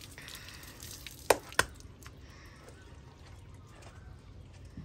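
Water splashing as it is poured from a metal pail over a calf, then two sharp knocks about a second and a half in.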